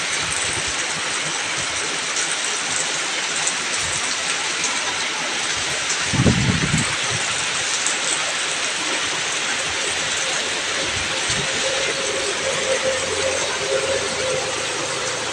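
Heavy tropical rain pouring steadily, a dense even hiss, with one short low thump about six seconds in.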